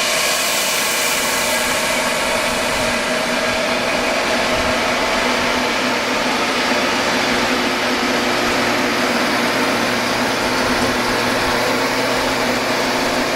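Quincy Northwest 50 hp rotary screw air compressor running steadily: an even rush of air with a steady hum of several tones.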